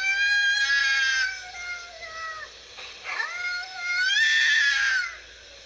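Cat yowling in a standoff with another cat: two long, drawn-out yowls with a wavering pitch, the second starting about three seconds in.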